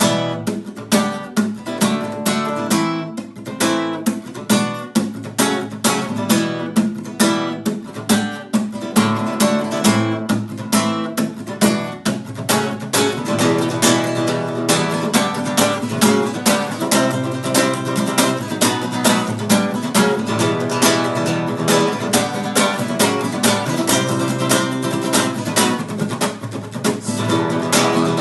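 Acoustic guitar strummed in a steady rhythm of sharp, percussive strokes, played as the 'stuk' (knock) strumming pattern.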